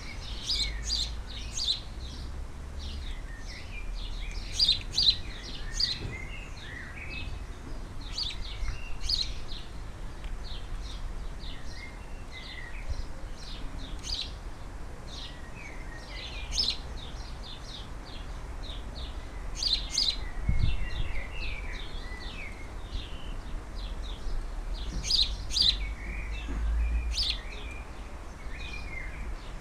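Garden birds chirping and calling in quick short notes, over and over, with a steady low rumble underneath.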